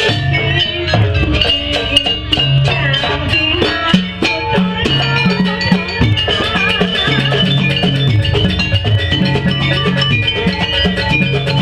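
Live traditional Banyuwangi ensemble music for a barong dance: drums and struck tuned metal percussion playing a dense, fast rhythm over low sustained gong-like tones.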